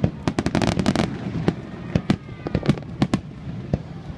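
Aerial fireworks going off in quick, irregular bangs, with a dense burst of crackling about half a second in.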